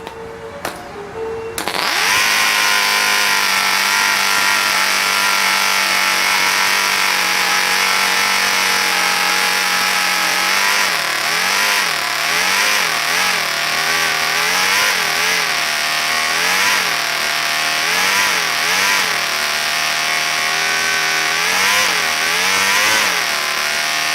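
Home-built five-cylinder radial model engine with Cox .049 glow-fuel cylinders running at high speed, cutting in sharply about a second and a half in. From about halfway its speed rises and falls over and over, about once a second, as the throttle is worked.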